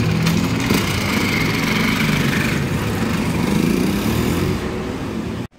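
Motorcycle engine running close by, its pitch rising about three seconds in as the bike pulls away and speeds up. The sound cuts off suddenly near the end.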